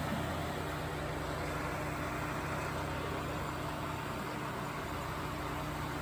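Mid-1960s Rootes Tempair portable air conditioner running with its case off: a steady compressor hum under the even rush of its fan motors.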